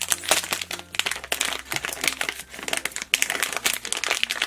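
Foil blind bag crinkling and crackling as it is pulled open by hand, with dense irregular crackles all through.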